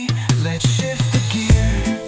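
Reggae-style instrumental music: bass and drums with pitched instrument notes, no singing.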